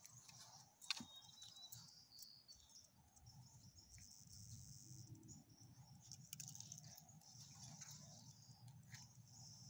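Faint, steady, high chirring of crickets, with a few soft clicks.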